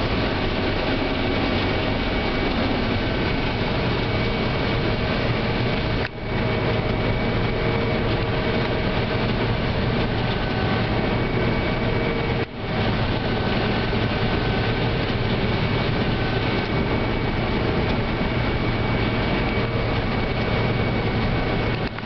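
Combine harvester running steadily while harvesting corn, heard from inside the cab: an even engine and machinery drone with a few constant tones. The sound dips out very briefly twice, about six and twelve and a half seconds in.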